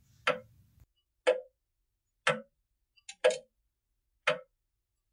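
Clock ticking slowly and evenly, one tick a second, with a small extra click just before the fourth tick.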